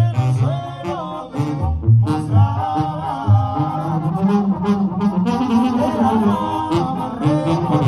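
Mexican banda brass band playing live, a section of trombones among the brass, over a pulsing low bass line.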